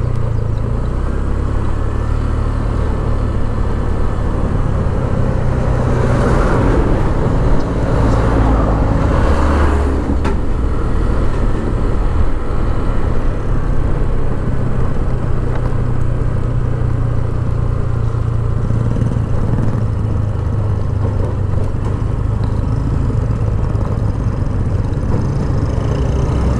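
Motor scooter running under way: a steady engine drone with road noise from the broken road surface, getting louder for a few seconds about six to ten seconds in.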